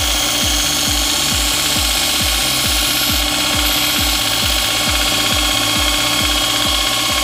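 Electronic dance music with a steady kick beat, about two and a half beats a second, over the steady running of a bench belt sander grinding a brass bullet casing.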